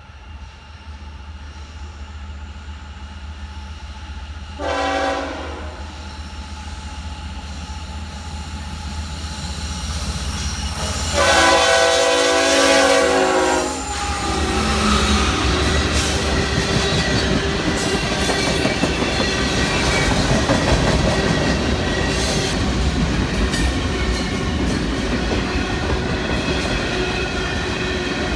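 Diesel freight train approaching, its rumble growing louder, with the locomotive horn sounding a short blast about five seconds in and a longer, louder blast around eleven seconds. After the horn stops, the locomotives pass and the cars roll by with a steady clatter of wheels over the rails.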